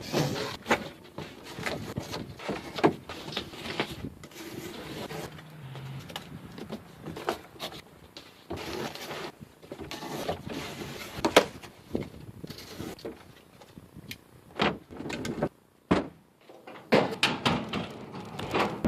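Drawers of a metal Craftsman tool cabinet sliding open and shut on ball-bearing slides, with scattered clicks and knocks.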